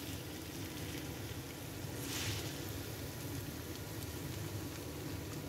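Spaghetti tossed with metal tongs in a hot frying pan: a soft, steady sizzling hiss that swells briefly about two seconds in.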